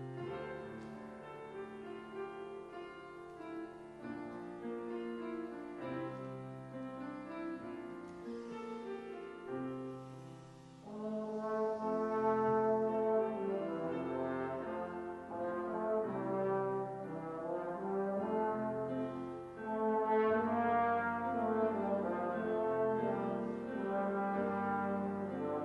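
Slide trombone playing a melody of held notes with piano accompaniment, growing louder about eleven seconds in.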